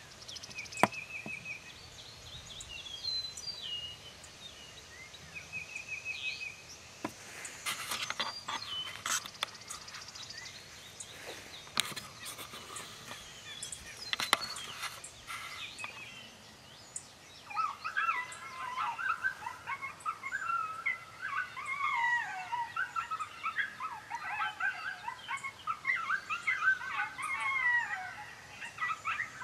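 Songbirds chirping and trilling, with a few sharp clicks and knocks, then from a little past halfway a dense run of high, wavering, overlapping coyote-pup howls and yips, played from a predator caller to draw in a coyote.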